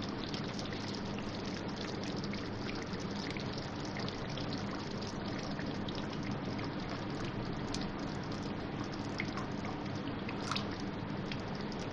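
Water being poured from a glass jug into a pan of yogurt-and-spice masala frying in oil, over steady sizzling with scattered crackling pops.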